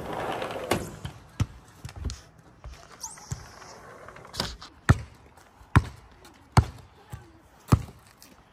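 Basketball bouncing on the ground in single, irregularly spaced bounces, the loudest coming about a second apart in the second half.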